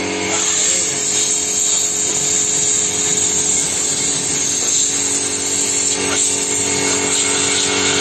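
A spray gun on a hose hissing steadily as it blasts mud off a white sneaker, over a steady machine hum.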